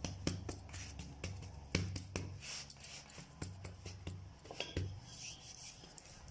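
Greased hands gathering and pressing a hot sesame and jaggery mixture into a ball on a greased surface: irregular soft taps and sharp clicks, over a low hum.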